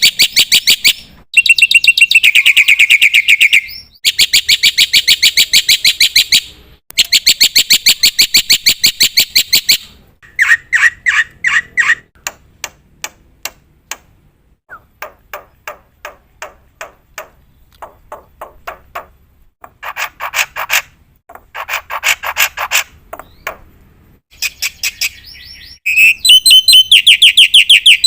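Black-winged myna (jalak putih) singing loudly in long bursts of rapid, evenly repeated rattling notes, with short breaks between bursts. A quieter stretch of sparser single notes falls in the middle.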